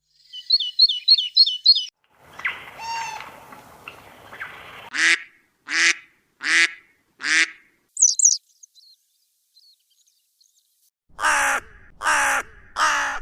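Bird calls in separate short bursts: first a quick run of high chirps, then four loud harsh calls evenly spaced under a second apart, and three more harsh calls near the end.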